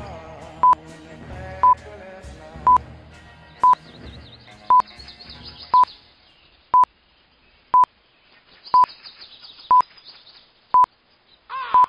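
Electronic bomb countdown timer beeping, one short high beep each second as it counts down. Quiet background music runs underneath and stops about six seconds in.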